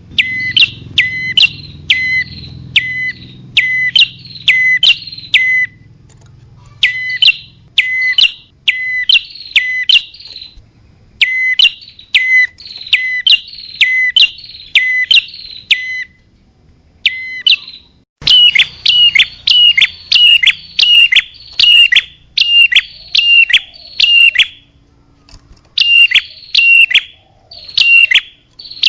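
Prenjak (prinia) calls played as a looped bird-trapping lure: loud, short, sharp chirps repeated about twice a second, with a brief pause about sixteen seconds in and a quicker run after it.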